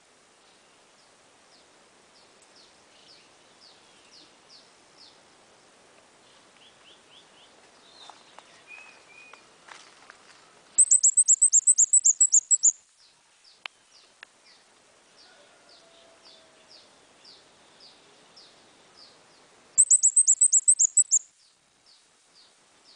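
A small songbird singing: two loud, very high, rapid trills of about ten sharp falling notes each, one about halfway through and one near the end, with fainter repeated high chips between them.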